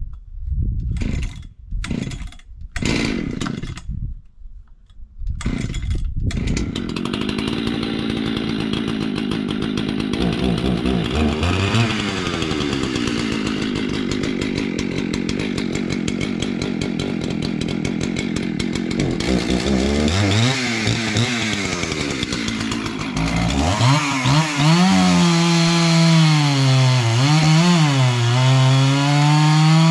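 Husqvarna 266 XP two-stroke chainsaw with a 72 cc big-bore kit, running steadily after a few short knocks in the first six seconds. Its pitch drops and recovers several times as the engine is pulled down cutting wood, most strongly in the last few seconds.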